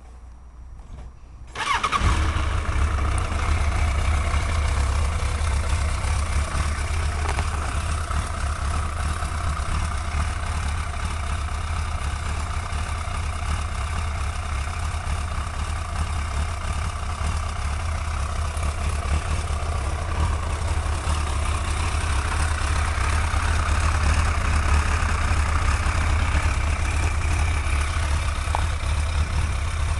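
Suzuki GSX-R1100 inline-four engine starting about two seconds in, then idling steadily. It idles without the exhaust tick that a leaking exhaust seal had caused.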